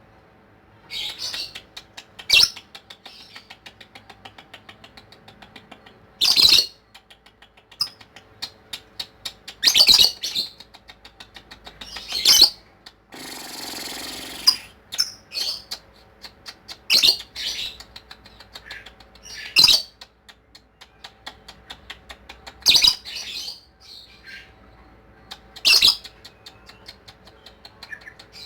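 Lovebird singing its long chattering "ngekek" song: rapid runs of chirps, broken about every three seconds by a loud, shrill squawk. A brief rustle comes midway through.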